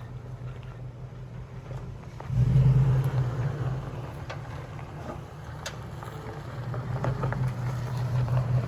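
Off-road vehicle's engine running at low speed, with the throttle opened about two seconds in so it gets louder for a moment, then steady; scattered clicks and knocks over it.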